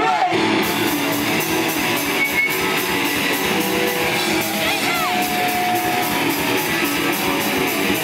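Live pop-punk band playing a mostly instrumental passage: distorted electric guitars, bass and a drum kit keeping a steady fast beat. A single high note slides down and is held for about a second around the middle.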